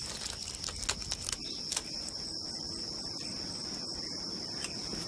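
Insects chirring in one steady high-pitched tone, with a few faint clicks in the first two seconds.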